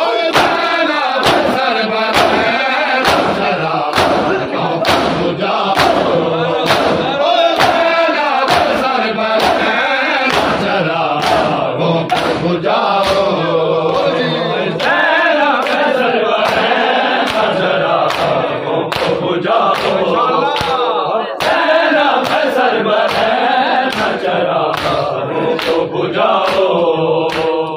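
A large crowd of men chanting a Shia noha together, with a steady beat of hands striking bare chests (matam), about two thumps a second.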